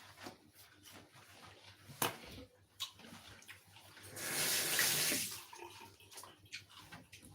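Kitchen tap running briefly for just over a second, about four seconds in, between scattered small clicks and knocks of utensils and a bowl, with one sharper knock about two seconds in.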